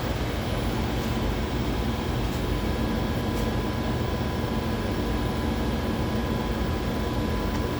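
Steady machine hum with a faint continuous whine, from laboratory instruments running (pumps and cooling fans of an LC-MS system).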